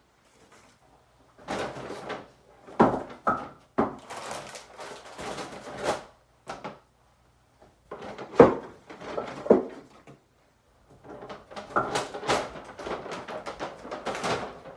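Paper grocery bags rustling and crinkling as items are pulled out, in irregular bursts, with sharp knocks of items being set down on a countertop.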